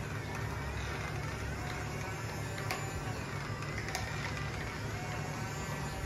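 Small electric motors and gearboxes of RC toy construction vehicles whirring steadily with a low hum, their pitch wavering slightly, with a couple of sharp plastic clicks.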